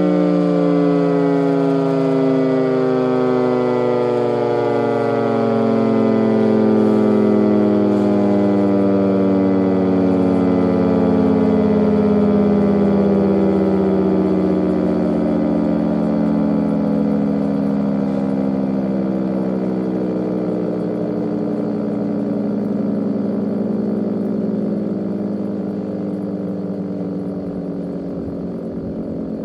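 Federal Signal 3T22A electromechanical outdoor warning siren winding down after its test: a loud, many-toned wail whose pitch falls slowly and steadily as the rotor coasts to a stop.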